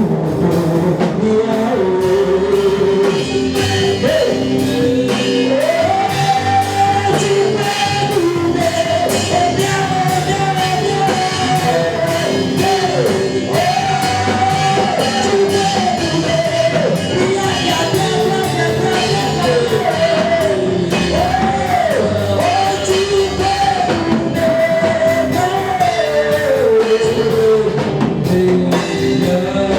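Live gospel worship music: a lead singer holding and bending long sung notes over a full band with drums.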